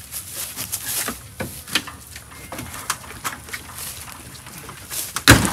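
Scattered light clicks and knocks, then a single loud thump about five seconds in.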